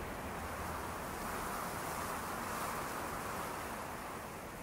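Steady rushing noise of wind and sea wash, swelling and easing gently and slowly fading near the end.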